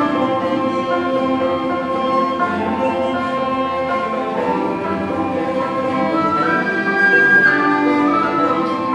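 Irish folk instrumental: tin whistle and fiddle playing the tune together, with banjo and mandolin accompanying. A higher note is held for about a second, about two-thirds of the way through.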